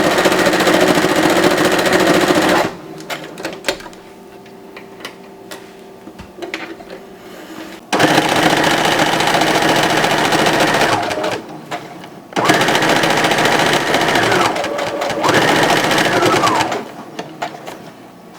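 Brother CE1100PRW sewing machine stitching in three runs with short pauses between them. Its motor whine rises as it speeds up and falls away as it stops, and there are light clicks during the pauses.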